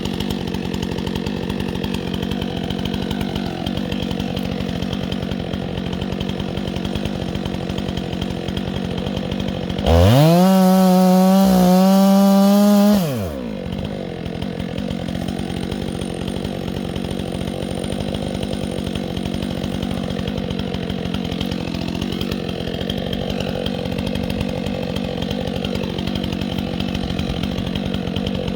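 Chainsaw idling, then revved up to full throttle about ten seconds in, held there for about three seconds and dropped back to idle.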